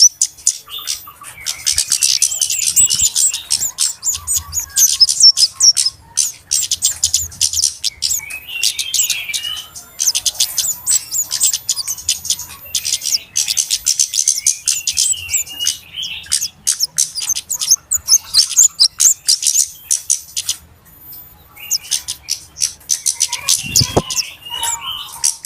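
Flowerpeckers (kemade, cabe-cabean) giving rapid, high-pitched chipping calls in dense bursts a few seconds long with brief pauses, a noisy chorus used as a lure call for small birds. A brief low thud near the end.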